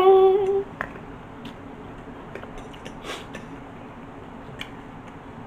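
A person hums a loud 'mmm' that rises in pitch and is held briefly, ending within the first second. After that, faint scattered clicks and scrapes of forks against salad bowls while eating.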